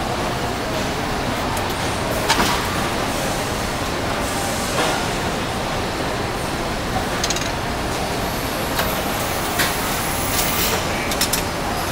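Steady din of engine assembly-line machinery, with occasional short, sharp metallic clicks and clanks.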